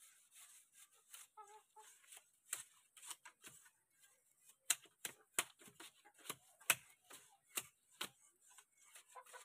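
A knife blade scraping and shaving the sharp edges off a split bagakay bamboo strip, in a run of irregular sharp strokes, the loudest in the second half.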